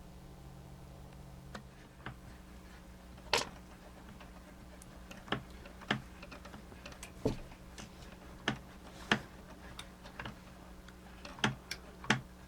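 Light, irregular clicks and taps, about a dozen, from small plastic parts of an animated display's gear mechanism being handled and worked by hand. The loudest click comes about three and a half seconds in.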